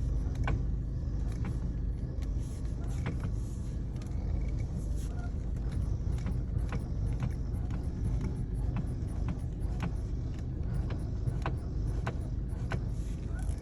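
Volkswagen Passat B6 driving with a steady low rumble, over which come sharp irregular knocks, roughly one a second: a worn steering rack knocking.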